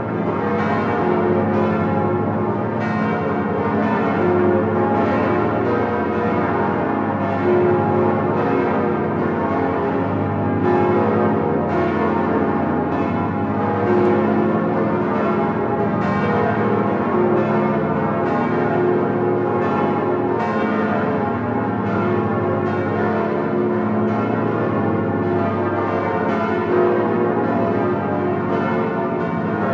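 The ten swinging bronze bells of Notre-Dame de Paris rung together in full peal (plenum), bourdons and small bells at once: a dense, continuous run of overlapping strikes with deep low tones under bright higher ones, heard close from inside the belfry.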